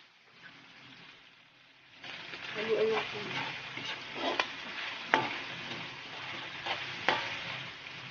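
Pork frying and sizzling in a metal wok, stirred with a spatula. From about two seconds in, the spatula scrapes the pan, with a few sharp clacks against the metal.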